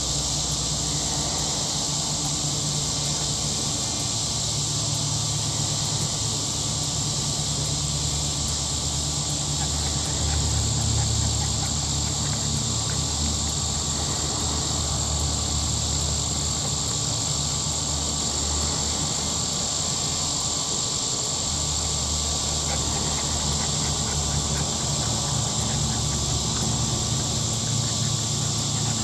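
Steady outdoor background noise: an even high hiss with a thin high tone in it, over a low hum, with no distinct events.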